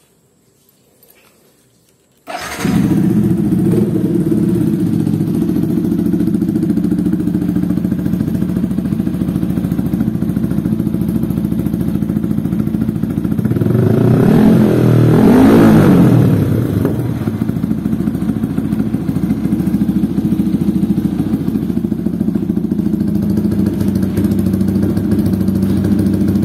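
Yamaha sport bike's engine, heard through an SC-Project slip-on exhaust, starting about two seconds in and settling into a steady idle. About halfway through the throttle is blipped, the revs rising and falling over a couple of seconds before it drops back to idle.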